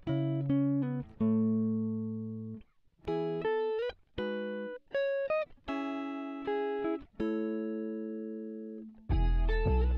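Background instrumental music of plucked, guitar-like notes and chords, each ringing and fading with short gaps between them; a fuller passage with deeper bass comes in near the end.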